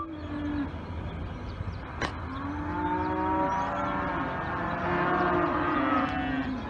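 Holstein cows mooing: several long, drawn-out calls that rise and fall, one after another and overlapping near the end, over a steady low rumble. A single sharp click about two seconds in.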